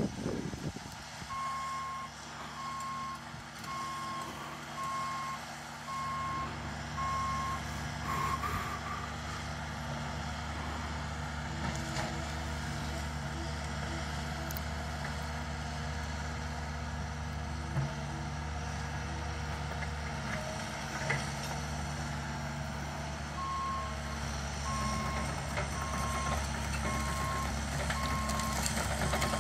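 Caterpillar mini excavator's travel alarm beeping steadily at about one and a half beeps a second, over the excavator's engine running. The beeping stops after about eight seconds while the engine runs on louder, and starts again a few seconds before the end.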